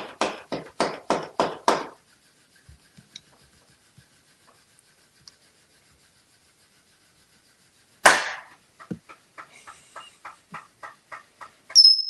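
Fish toy's tail flapping against a granite countertop in quick knocks, about four a second, then stopping. About eight seconds in it falls off the counter and hits a spoon with a loud clatter, then keeps flapping more faintly, about three knocks a second.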